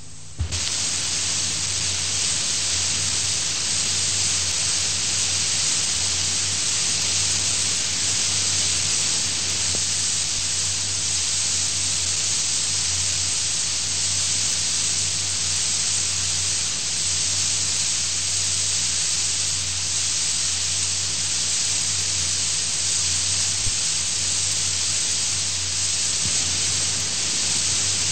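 A click about half a second in, then a steady hiss with a low hum underneath it: the background noise of a speech recording between sentences.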